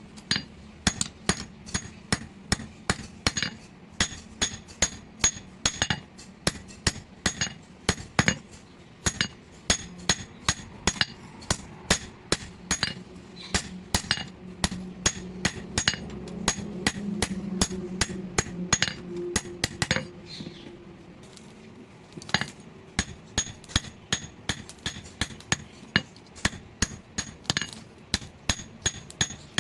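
Hand hammer forging hot steel on an anvil: rapid, regular blows, about two to three a second, each with a bright metallic ring. The blows pause briefly a little after two-thirds of the way through, then resume. A steady low hum runs underneath.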